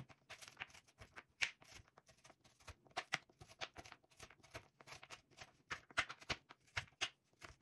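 A knife chopping chocolate bars on a cutting board: a run of irregular sharp snaps and knocks, several a second, as the blade breaks through the chocolate and hits the board.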